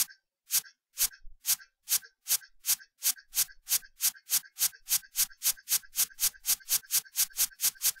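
A presentation slideshow's text-animation sound effect, playing once for each letter as the text types onto the slide. It is a string of short, sharp, hissy ticks, about two a second at first, quickening to about four a second.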